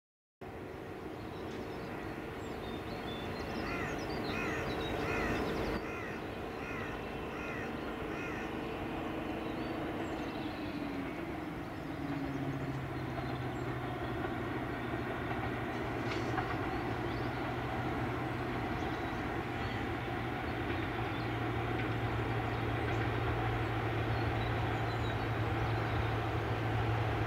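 A heritage diesel locomotive's engine running, a steady low drone that grows slowly louder through the second half. A bird calls repeatedly in the first part.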